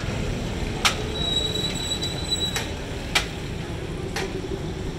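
A metal serving spoon knocks against the side of a large metal biryani pot four times as rice is dished out, over a steady background hum.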